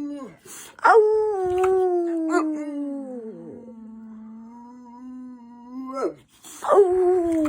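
Dog howling: a long drawn-out howl that starts high and slides down, then holds low, with a second howl beginning near the end.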